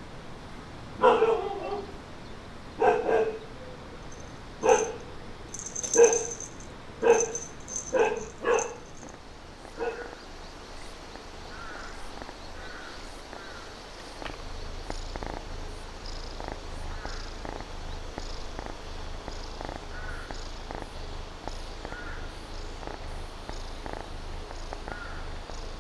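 A dog barks about eight times in quick, uneven succession over the first ten seconds. From about halfway in, a kitten purrs steadily as it is stroked on the head.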